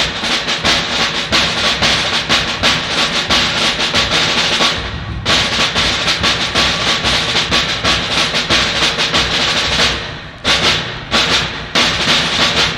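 Concert band percussion section drumming: rapid snare-drum strokes with bass drum underneath, breaking off briefly about five seconds in, then separate accented strokes near the end.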